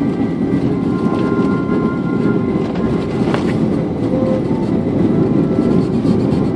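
Airbus A330-300 touching down and rolling out, heard from inside the cabin: a loud, steady rumble of runway and engine noise that grows slightly louder in the second half. There is a single thump about three seconds in.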